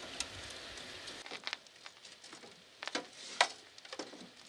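A few light clicks and taps, scattered and irregular, as hands work loose the front hood section of a 1/14-scale RC4WD 797F all-metal mining truck.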